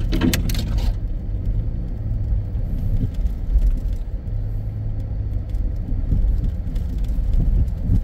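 Jeep driving slowly along a rough, muddy dirt road, heard from inside the cabin: a steady low rumble of engine and tyres, with a few light knocks from bumps.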